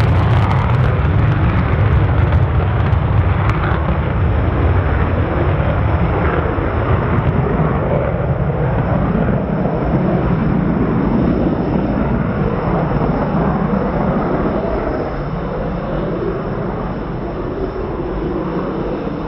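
Panavia Tornado GR4's twin RB199 turbofans running in afterburner on the takeoff roll and climb-out, a loud, deep jet noise with sharp crackles in the first few seconds. It fades slowly as the jet climbs away.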